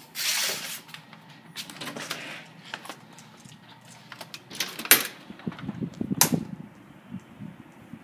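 Handling noise from a phone being carried: rustling and rubbing against fabric, with low bumps and sharp clacks, the loudest about five and six seconds in.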